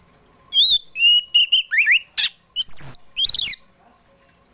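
Oriental magpie-robin (kacer poci) singing a loud phrase of clear whistled notes with rising and falling slides, broken by a couple of harsh rasping notes. It starts about half a second in and lasts about three seconds.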